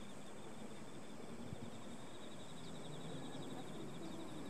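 Insects chirring in the grass: a steady, rapidly pulsing high trill over a faint, even outdoor background noise.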